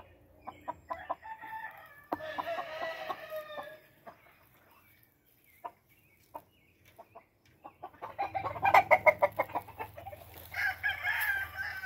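Game chickens calling: a rooster crows about two seconds in and again near the end, with a loud run of rapid, short clucks in between.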